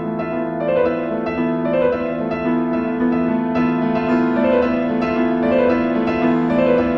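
Background music carried by a piano, with a melody of repeating notes over steady held chords.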